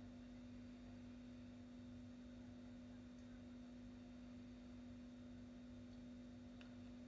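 Near silence: room tone with a faint steady hum, and one faint tick near the end.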